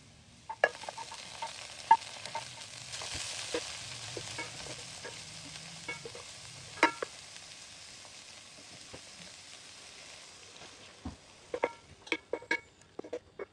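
Garlic and water spinach (Chinese morning glory) sizzling in hot oil while a wooden spatula stirs them, clicking and scraping against the pan. The sizzle swells about three seconds in, and a run of quick spatula taps comes near the end.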